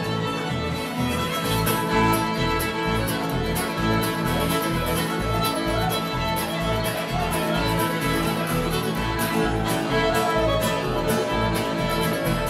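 Two fiddles playing an old-time fiddle tune instrumental break, backed by upright bass, guitar and mandolin, with the bass pulsing on a steady beat.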